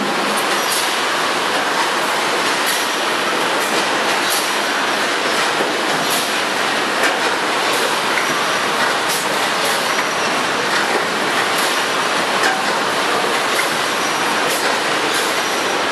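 Automatic woven-bag filling and sewing machinery running steadily, a dense mechanical din and hiss with sharp clicks and clacks at irregular moments.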